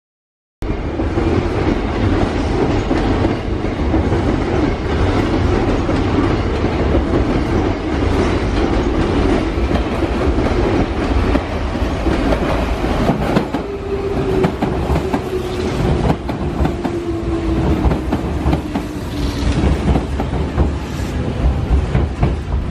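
Hanshin 5000-series "Jet Car" commuter train running close past over points and rail joints, its wheels clacking steadily. From about halfway a single whine slides slowly down in pitch as the train slows.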